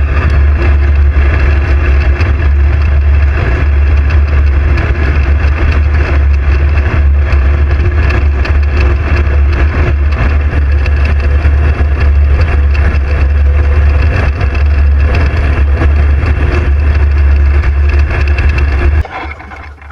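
Aircraft engine droning steadily and loudly, with a heavy low hum; it cuts off abruptly near the end.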